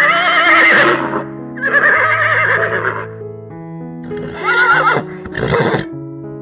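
Horse whinnying three times, the first call quavering in pitch, over soft piano background music.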